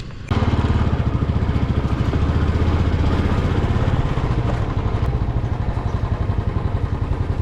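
Motorcycle engine running with a fast, steady firing pulse, cutting in suddenly just after the start.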